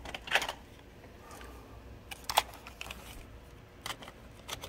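Scattered plastic clicks and small knocks as an 8mm videotape cassette is handled and fitted into the camcorder's open tape compartment, the sharpest click about two and a half seconds in.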